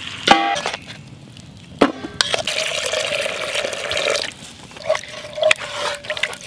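A wooden spoon knocks twice against a stainless steel pot, which rings briefly. Then water is poured into a cast iron Dutch oven of roasted beef bones and vegetables, and the wooden spoon stirs and scrapes the pot with a few light clicks.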